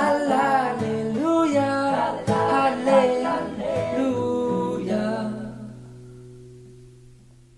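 Closing bars of a pop song: a sung melody over acoustic guitar ends about five seconds in, and the last chord rings on, slowly fading out.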